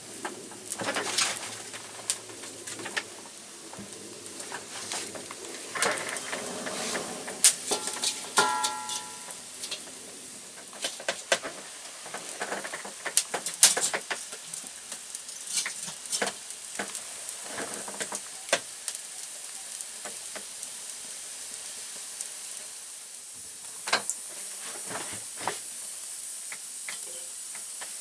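Small wood fire, lit with pine cones and kindling, crackling steadily with many sharp irregular pops. A short bird call is heard about eight seconds in.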